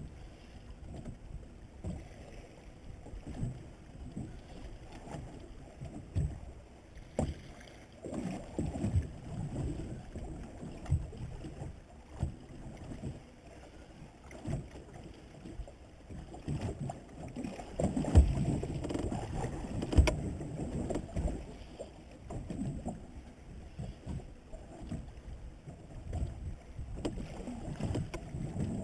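Water slapping against the hull of a small boat rocking at sea, an irregular low rumble with scattered knocks and bumps, the loudest two about 18 and 20 seconds in.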